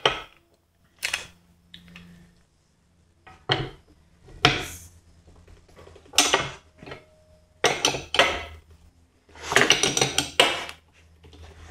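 Scattered metal clanks and clinks, about eight with short quiet gaps between, as a socket, breaker bar and digital torque meter are fitted onto half-inch steel bolts and pulled to break them loose.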